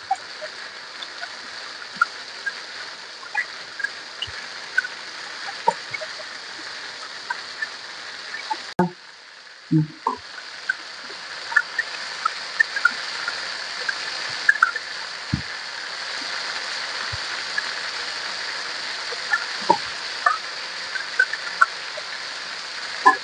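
Marinated chicken drumsticks frying in hot oil in a pan, on a flame just turned up from low: a steady sizzle with frequent sharp pops and crackles of spitting oil. The sizzle grows a little louder about ten seconds in.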